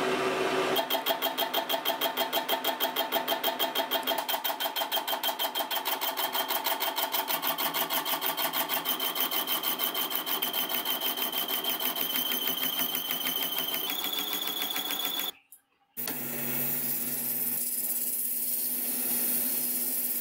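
A ring cutter on a milling machine cutting a stainless steel ball as it turns in a spindle: a rhythmic chatter of about five pulses a second over a steady high whine. After a brief gap there is a steady hiss of the ball spinning in a lathe while being sanded by hand.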